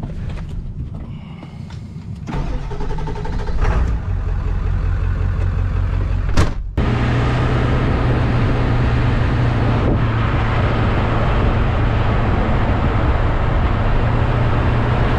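Pickup truck engine running, heard from the cab. About seven seconds in it switches suddenly to the steady loud noise of the truck driving down the road, with engine drone and wind and road rush on an outside-mounted microphone.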